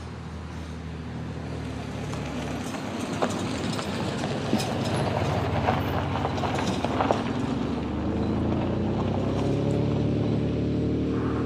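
An engine running and slowly getting louder, with a few sharp knocks and clatters in the middle; its pitch rises near the end.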